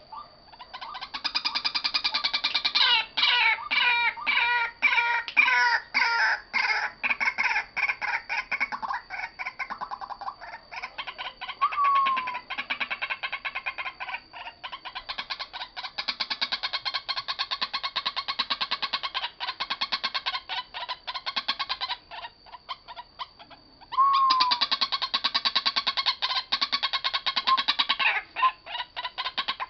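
Caged decoy white-breasted waterhen calling on and on: a fast string of harsh, repeated notes. There is a short lull about three quarters of the way through, then the calling starts up loudly again.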